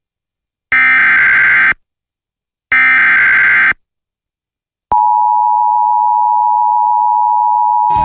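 Emergency Alert System SAME header: two one-second bursts of harsh, screeching digital data tones about a second apart, encoding a severe thunderstorm warning. About five seconds in, the steady two-tone EAS attention signal begins and holds.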